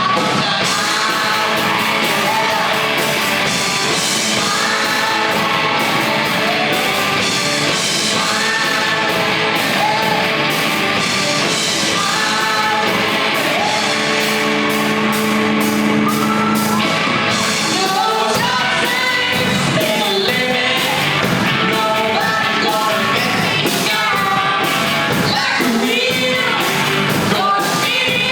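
A live band playing a song with a lead singer, drums keeping a steady beat.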